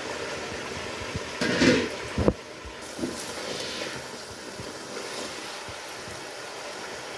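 Chicken pieces simmering in gravy in a cooking pot, a steady bubbling hiss. A spoon stirs and knocks against the pot about two seconds in.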